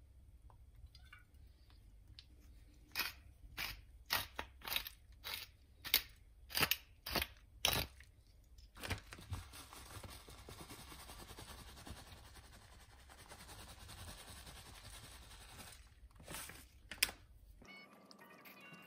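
About ten sharp crunching strokes at roughly two a second, then a steady hiss lasting several seconds, and two more crunches near the end.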